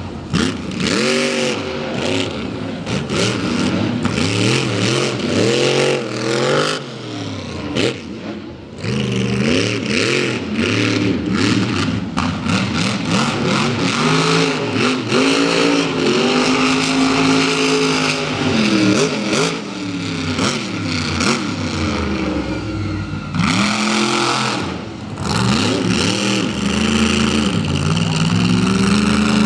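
Monster truck engine revving hard, its pitch climbing and falling again and again as the truck is driven around the track.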